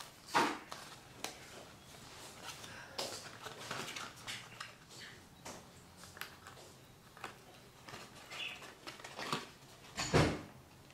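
Cardstock being handled and folded by hand: soft rustles and scattered small taps and clicks, with one louder thump about ten seconds in.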